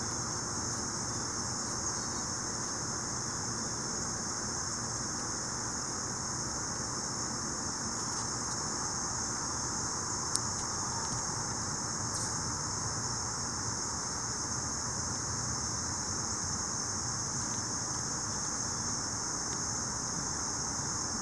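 Steady outdoor ambience: an unbroken high-pitched insect chorus over a low, even background rumble, with a single sharp click about ten seconds in.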